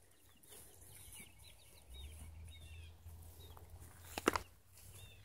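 Hens clucking softly with short, repeated calls, then a quick cluster of knocks about four seconds in.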